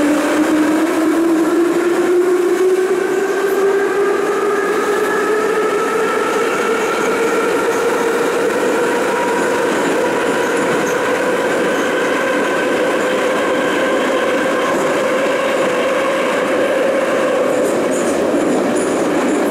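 Ezh3 metro train running through a tunnel, with the rumble of its wheels on the rails and a whine from its traction motors. The whine rises in pitch through the first half as the train gathers speed, then holds steady at running speed.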